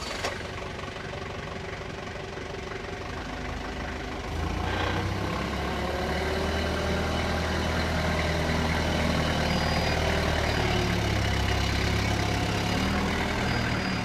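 Isuzu diesel engine of a 3-ton forklift running at low revs, then getting louder about four seconds in as the forklift is driven off and turned.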